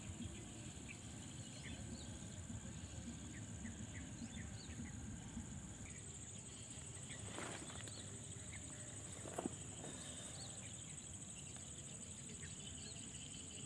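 Quiet wetland ambience: insects keep up a steady high-pitched drone, with scattered short high chirps over a low rumble of wind noise. A single sharp knock stands out about nine and a half seconds in.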